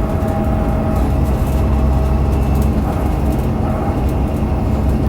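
Inside an Alexander Dennis Enviro500 MMC double-decker bus under way: its Cummins ISL8.9 straight-six diesel runs with a steady low drone, with light rattles. A whine from the drive axle, the weird axle sound, is clear at first and fades within the first second.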